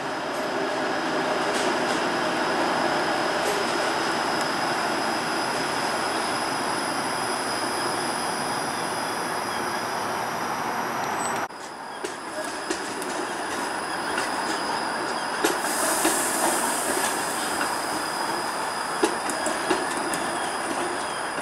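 Toronto Flexity Outlook low-floor streetcar rolling past on its rails: a steady rumble of wheels on track, with thin high steady whining tones above it. After a sudden break about halfway through, the streetcar runs on with scattered clicks from its wheels on the track.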